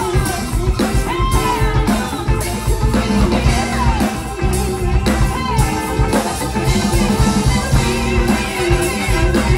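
A band with a horn section playing an upbeat number: drum kit, guitar and bass under horns, with a voice singing lines that bend up and down over it.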